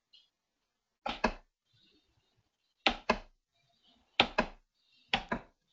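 Computer mouse double-clicked four times: pairs of sharp clicks, the pairs a second or more apart.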